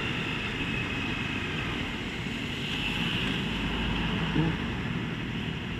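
Motorcycle riding noise at a steady pace on a wet city road: engine, wind on the microphone and tyre noise, with no big changes.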